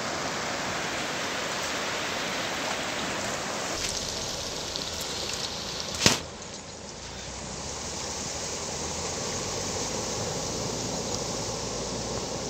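Floodwater rushing steadily across a submerged road causeway, with one sharp click about six seconds in.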